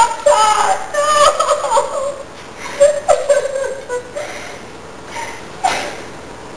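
A girl sobbing in uneven, wavering cries, heaviest in the first two seconds and then breaking into a few shorter sobs.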